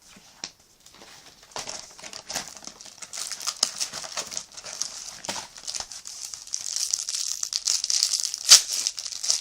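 Plastic wrapping on a trading-card booster box crinkling and rustling as the box is unwrapped. It grows louder, with a sharp crackle near the end.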